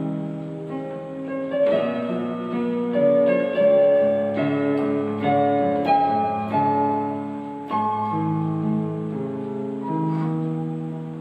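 Electronic keyboard on a piano voice, played with both hands: a slow melody over held chords, with notes ringing on.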